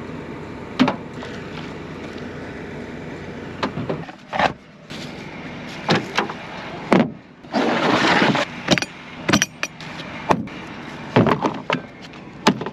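Scattered sharp metal clanks and knocks of farm equipment being hooked up, over a steady idling engine, with a louder rushing burst about eight seconds in.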